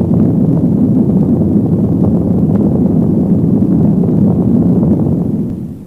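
Nuclear explosion sound effect: a loud, steady, low rumble that fades out near the end.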